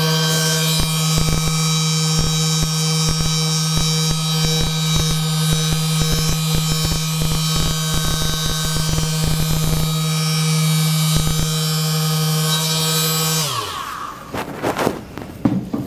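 A small electric motor hums steadily, with irregular clicks over it. About 13 seconds in it winds down, falling in pitch, and stops, leaving a few knocks and handling noises.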